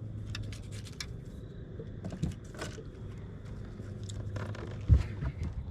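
Scraping and clicking handling noises with one loud thump about five seconds in, over a steady low hum.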